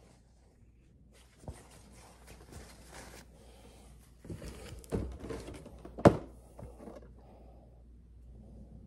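Rustling and handling of a cloth wall scroll and a cardboard box as items are moved about, with a few knocks; the loudest is a sharp thunk about six seconds in.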